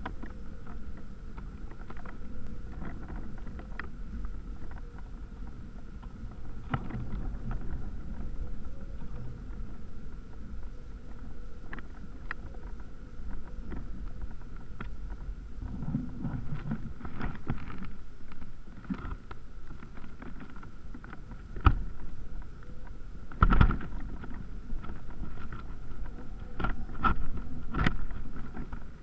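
Wind rumbling over the microphone of a GoPro camera lifted by a kite, with a faint steady whine and scattered knocks and rattles from the camera shaking, two of them louder a little past two-thirds of the way through.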